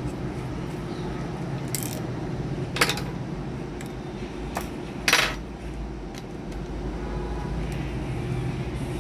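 A few sharp metallic clinks and clicks of parts and tools being handled while a Bluetooth speaker is taken apart, the loudest about five seconds in, over a steady low hum.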